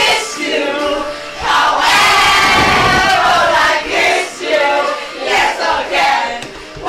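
A group of young people shouting and shrieking together, with brief lulls about half a second in, about four seconds in and near the end.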